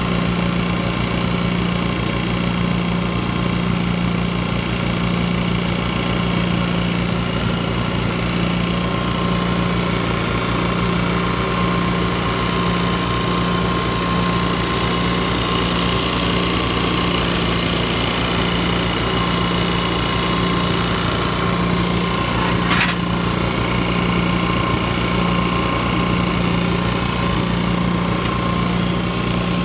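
1960 Allis-Chalmers D14's four-cylinder gasoline engine running steadily at an even speed. A single sharp click is heard late on.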